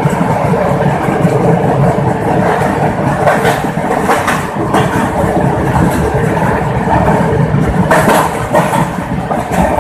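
Passenger train running at speed through a rock tunnel, heard from an open coach door: a loud, steady rumble of wheels on rails and rushing air, with a few sharper clatters now and then.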